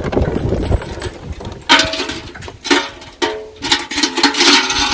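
Steel well chain rattling and a galvanised metal bucket clanking and ringing as the bucket is hooked on and lowered into the well. Quieter handling at first, then bursts of metallic rattling from about two seconds in.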